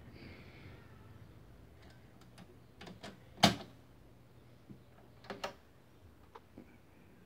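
Scattered sharp mechanical clicks and knocks of hi-fi controls being handled: one loud click about halfway, a quick pair a couple of seconds later, and a few lighter ticks between, over faint room hiss.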